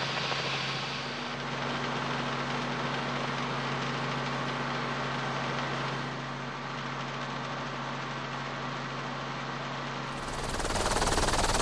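Helicopter engine and rotor drone heard from on board, a steady mechanical hum over a rushing noise. About ten seconds in it cuts to a louder, rougher rushing noise.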